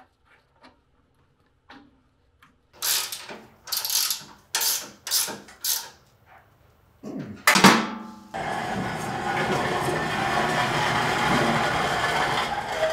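Ratchet wrench tightening the bolts through wooden riser blocks into a metal machine stand, a burst of ratchet clicks on each of five or six quick strokes. A few seconds later there is a sudden knock, then a steady rushing noise that lasts about four seconds.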